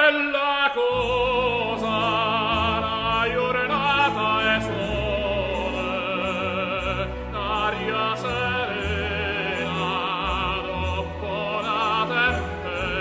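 Background music: operatic singing with a strong vibrato over an orchestral accompaniment with sustained bass notes.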